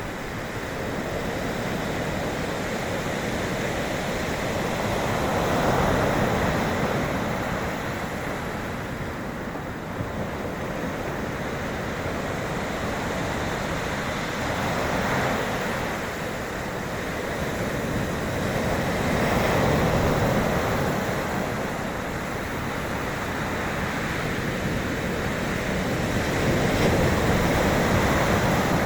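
Sea waves washing in, a continuous rushing surf that swells louder four times as waves break.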